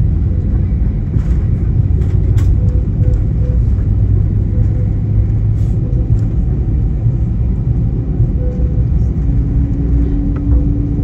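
Cabin noise of an Airbus A320-family jet airliner taxiing: a steady low rumble of engines and rolling wheels, with a faint low hum coming in about nine seconds in.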